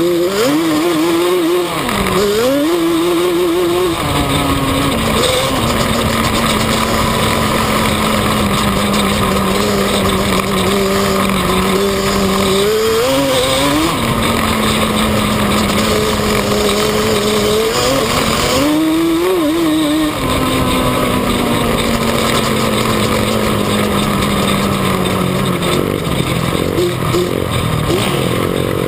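Yamaha Banshee's twin-cylinder two-stroke engine heard from on board while riding, the revs climbing in several quick rises and held nearly steady for several seconds between them.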